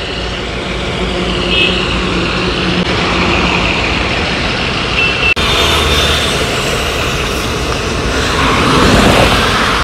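Roadside traffic noise: vehicle engines running and passing, with a few brief high beeps. The sound changes abruptly about five seconds in.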